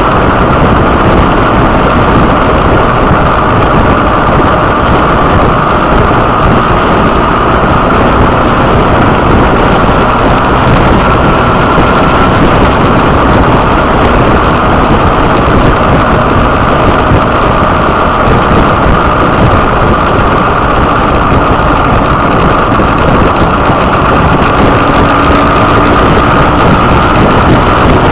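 Motorcycle riding at road speed, heard from on board: steady loud wind rush over the microphone, with the engine running underneath at an even pace.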